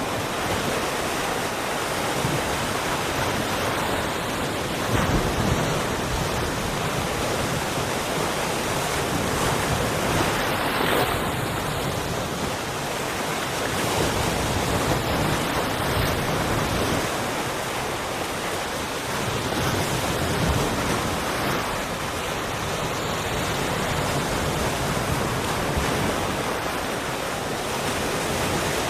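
Sea waves breaking and washing ashore in a continuous rush of surf that swells and eases gently every few seconds.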